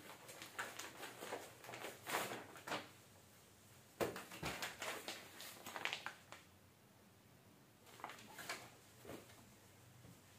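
Clear plastic packaging of a packed suit crinkling and rustling as it is handled and opened, in irregular bursts, with a sharper crackle about four seconds in. After a quieter stretch, a few more rustles come near the end as the fabric is unfolded.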